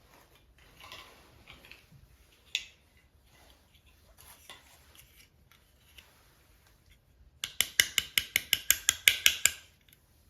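Hands handling toy packaging: soft rustling and a single sharp click, then near the end a quick run of about a dozen sharp clicks, roughly six a second.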